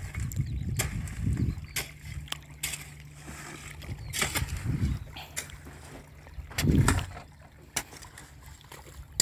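A pick-mattock chopping into dry, sandy soil: a string of sharp, irregular strikes about once a second, over a low rumble.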